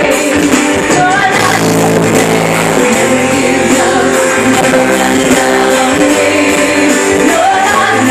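Live worship band playing loud: strummed guitars and keyboard chords over steady bass notes, with a singer's voice sliding up into notes about a second in and near the end, picked up on a phone's microphone.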